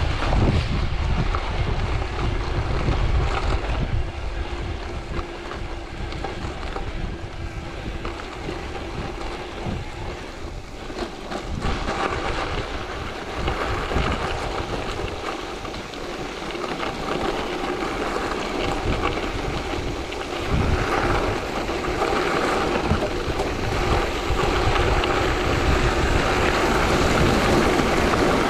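Wind rushing and buffeting over the microphone, mixed with the tyre and rolling noise of a gravel bike descending fast; the rumble swells and eases, strongest at the start and near the end.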